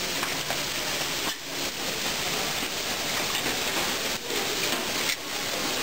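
Steady restaurant background noise: an even hiss that dips briefly a few times.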